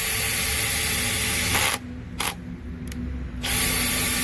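Makita XPH07 brushless hammer drill driving a fastener with its clutch set to 9, the clutch ratcheting as it slips under load. It stops about a second and a half in, gives a short burst, then starts again near the end.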